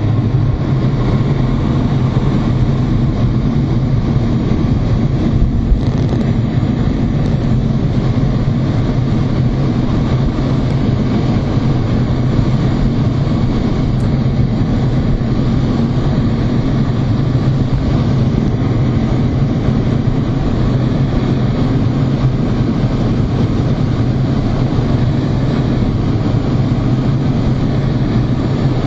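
Steady cockpit noise inside a two-seat MiG-29 jet fighter in flight: its twin jet engines and the rushing air make an even, loud noise with a strong low hum that stays unchanged throughout.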